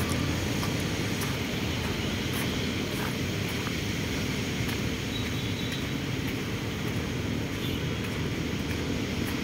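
Steady outdoor background noise: an even low rumble with a fainter hiss above it and no single source standing out.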